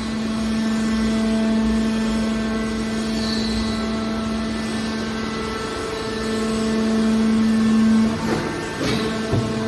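Hydraulic scrap metal baler shear running with a steady hum, a little louder between about six and eight seconds, then a few clanks of metal near the end.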